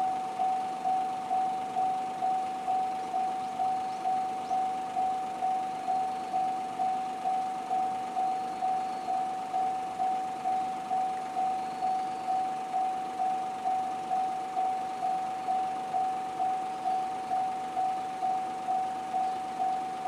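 Electronic level-crossing warning bell with the JR Central-type tone, ringing at an even pace of about two strikes a second, each strike a single ringing tone that fades before the next. It is the crossing alarm sounding for an approaching train.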